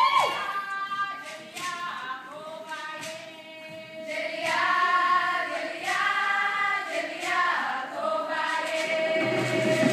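A group of voices singing together over sharp rhythmic claps, with crowd noise starting to rise near the end.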